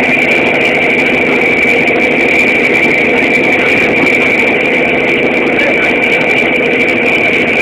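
Ship's engine running steadily, heard on board as a loud, even drone with a constant high whine above it.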